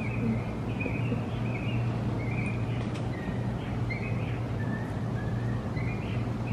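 A bird chirping over and over in short, sliding notes, a few a second, over a steady low hum.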